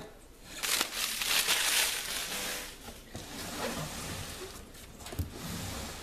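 Blue protective plastic film being peeled off a stainless steel microwave's casing: a noisy peel lasting about two seconds, then quieter rustling, with a single sharp knock near the end.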